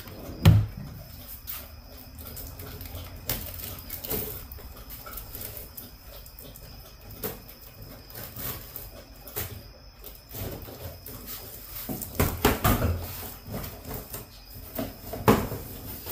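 Objects being handled and set down: scattered short knocks and clicks, with a sharp knock about half a second in and a few louder knocks around twelve and fifteen seconds in.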